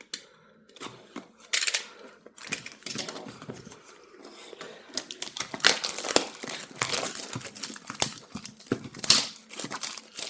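Wrapping on a cube box being cut open with a knife and pulled off, crinkling and tearing in irregular bursts with a few sharp crackles.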